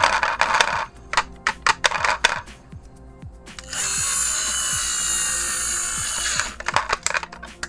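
Quick plastic and metal clicks and knocks from a diecast model truck being handled. Around the middle there is a steady whir lasting about three seconds. Background music plays underneath.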